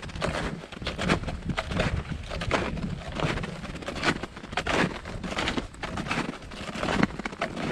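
Footsteps crunching in packed snow at a steady walking pace, roughly one step every two-thirds of a second, with a low wind rumble on the microphone underneath.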